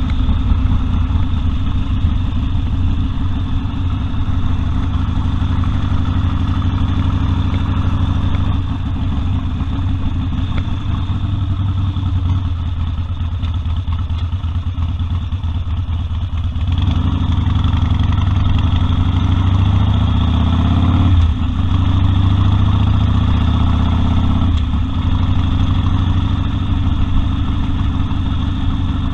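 Harley-Davidson Sportster 1200 Custom's air-cooled V-twin engine running steadily. A little past halfway its pitch climbs for about four seconds, then drops abruptly, and it changes note again a few seconds later.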